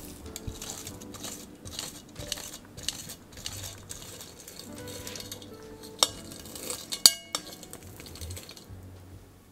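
A silicone spatula pressing mashed steamed sweet potato through a fine metal mesh sieve, in repeated soft scraping strokes. There are two sharp metallic clinks about six and seven seconds in; the second is the loudest and rings briefly. Soft background music runs underneath.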